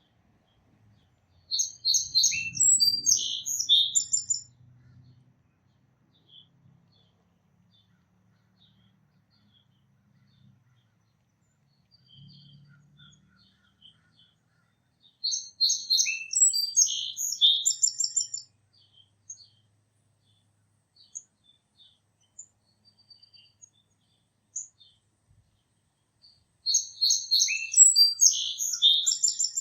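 A songbird singing the same complex, high song phrase three times, about once every twelve seconds, each phrase lasting about three seconds, with faint scattered chips in between.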